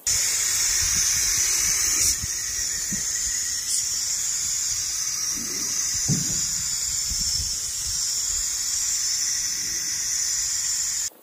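Gravity-feed paint spray gun running on compressed air, a steady high hiss as it atomizes paint onto car body panels. The hiss starts suddenly and cuts off just before the end.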